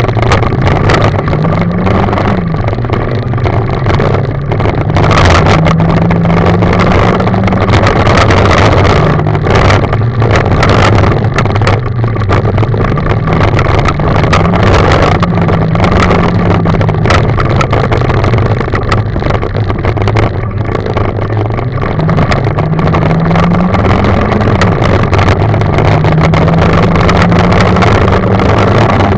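Rally car engine heard from inside the cabin, driven hard on a gravel stage: its pitch climbs and then drops again and again through the gear changes. Tyre and gravel noise and short knocks from the rough road run underneath.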